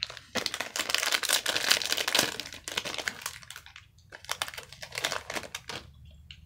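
A Topps baseball card fat pack's wrapper being ripped open and crinkled: dense crackling for about three seconds, then a few scattered crinkles.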